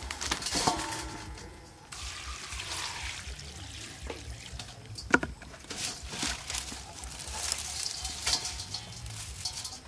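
Water poured from a bowl into a stainless steel basin over dried thin noodles, then hands sloshing and pulling the noodles apart in the water. Light scattered knocks, with one sharp click about five seconds in.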